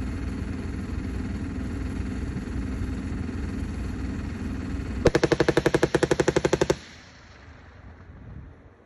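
A steady vehicle engine rumble, then about five seconds in a long burst of machine-gun fire, roughly ten rounds a second for just under two seconds, which cuts off suddenly.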